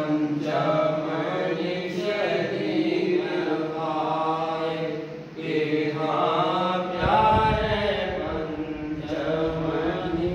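Devotional chanting: a voice sings a drawn-out, wavering melody over a steady low tone. From about seven seconds in, a low rumble joins underneath.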